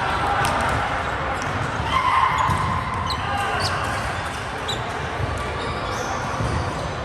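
Indoor volleyball rally: sharp ball contacts and short high shoe squeaks on the court floor, over a bed of players' distant voices and calls.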